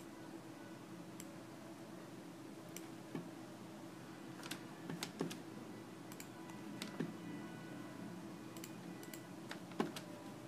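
Scattered clicks of a computer keyboard and mouse, some single and some in quick little clusters, over a faint steady hum.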